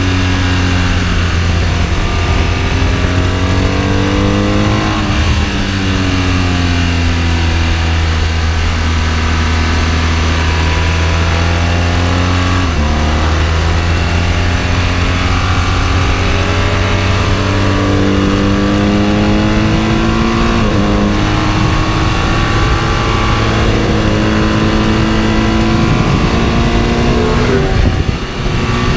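Sport motorcycle engine heard from on the bike at track speed, its pitch rising and falling with the throttle, with a few sudden steps in pitch as gears change. A steady rush of wind noise runs under it.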